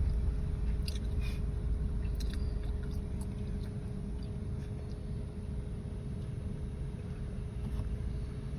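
Steady low rumble of a car's tyres and engine heard from inside the cabin as it drives slowly through standing floodwater on the road, with a faint steady hum and a few light ticks.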